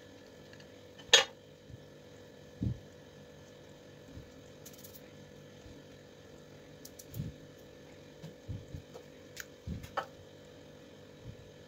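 Small tools and fingers on a Bluetooth speaker's metal-and-plastic casing as it is prised apart: one sharp metallic click about a second in, a dull knock soon after, then scattered light taps and clicks, over a faint steady hum.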